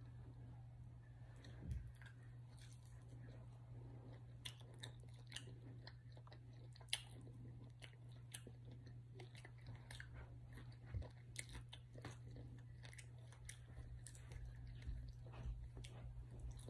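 A person chewing and biting into fried chicken wings close to the microphone: faint, scattered wet mouth clicks and crunches over a steady low hum.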